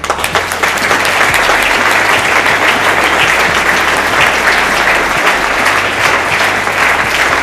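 A large audience applauding steadily: dense, continuous clapping.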